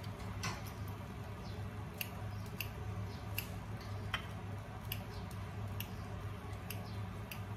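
Kitchen scissors snipping fresh coriander (dhaniya), a sharp snip roughly every second at an uneven pace.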